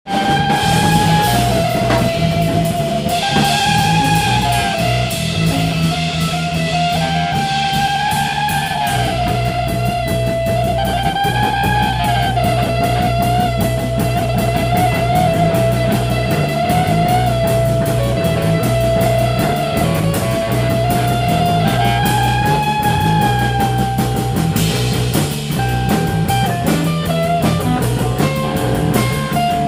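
Improvised rock jam by a guitar, bass and drum kit trio: the guitar plays long sustained lead notes that bend up and down in pitch, over a steady bass line and drums keeping a busy, regular beat.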